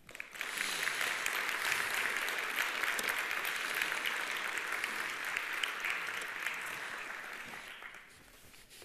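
Audience applauding at the end of a talk: steady clapping that starts right away, then dies away over the last couple of seconds.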